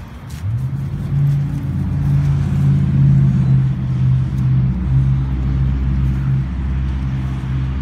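An engine starts up about half a second in, rising briefly in pitch, then runs steadily with a loud, low hum.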